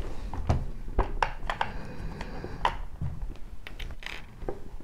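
Tamiya DT-03 RC buggy's plastic tub chassis being handled and laid down on a wooden table: a string of light clicks and knocks, a few of them duller thumps.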